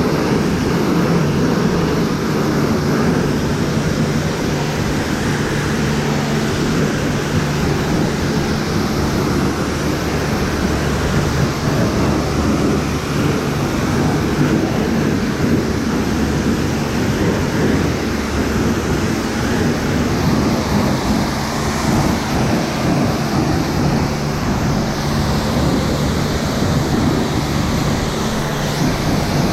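Pressure-washer wand spraying, a loud steady hiss over the pump's even low hum.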